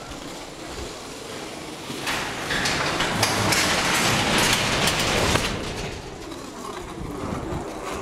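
Sectional garage door closing, its rollers rattling down the metal tracks: a clattering rumble that builds about two seconds in and eases off after about five seconds as the door comes down.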